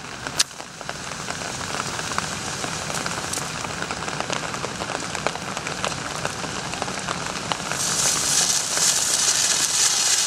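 Hand-held red stadium flare being lit: a sharp click just after the start, then a steady crackling, fizzing hiss as it burns. The hiss grows louder and brighter about eight seconds in as the flare catches fully.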